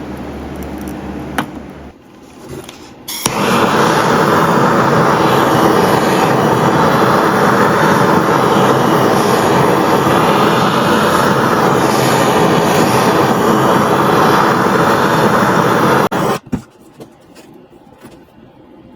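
A loud, steady rushing noise that starts suddenly about three seconds in and cuts off suddenly about thirteen seconds later.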